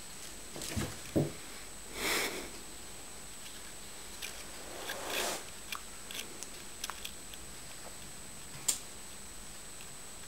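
A cat jumping at a wall: two soft thumps about a second in as it lands, then two short breathy puffs and a few faint clicks and taps.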